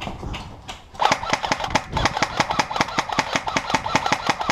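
Airsoft rifle firing: a couple of single shots, then about a second in a sustained full-auto burst of about eight shots a second that stops near the end.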